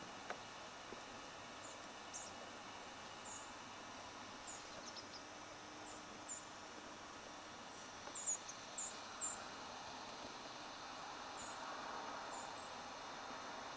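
Short, high chip notes from a small bird, scattered and irregular, with a quick cluster of three or four a little past the middle, over a faint steady hiss of woodland ambience.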